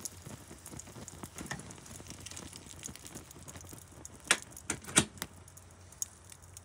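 Fire crackling with small ticks and a few sharp pops, the loudest of them about four to five seconds in.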